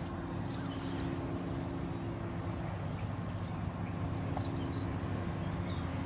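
A few faint, short, high bird chirps, scattered and irregular, over a steady low hum and background hiss.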